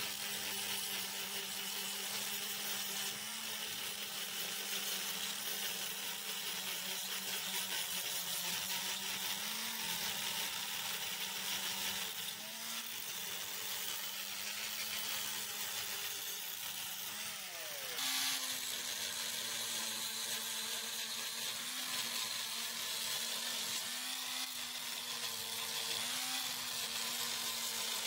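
Corded angle grinder with a new DeWalt grinding disc running steadily, grinding rust off a wrought iron railing. Its motor whine sags in pitch now and then as the disc is pressed into the metal, with one deeper dip and recovery about two-thirds of the way through.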